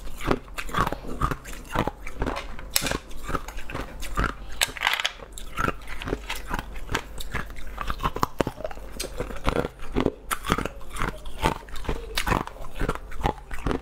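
Close-miked biting and chewing of a translucent green boot-shaped treat: a run of sharp crunches and wet mouth clicks, several a second.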